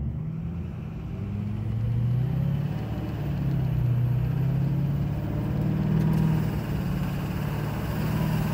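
Duramax LMM 6.6 L V8 turbodiesel in a pickup running under way, its engine note rising and falling a few times as the truck pulls and changes gear, with road noise underneath.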